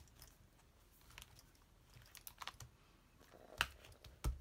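Quiet taps and small clicks of hands handling a leather pocket traveler's notebook and its paper inserts, with a sharper click about three and a half seconds in and a low thump just before the end.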